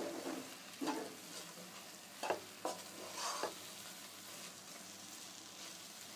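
Grated raw mango cooking in a pan on low heat, sizzling softly as it lets out its own juice, with a spoon scraping through it four times in the first half.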